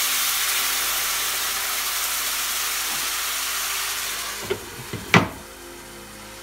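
Warm water poured into a hot, oiled frying pan of browned gyoza sizzling and hissing loudly as it turns to steam. About four seconds in a glass lid goes on with a few knocks and one sharp clank, and the sizzle carries on quieter under the lid.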